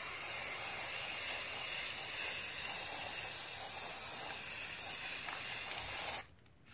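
Rust-Oleum Ultra Cover aerosol spray paint can spraying in one continuous hiss that cuts off suddenly near the end. This is a light first coat of paint going onto plastic shell cups.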